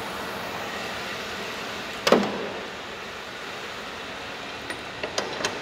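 3.6-litre Pentastar V6 idling steadily, with a sharp knock about two seconds in and a loud bang right at the end as the hood is slammed shut.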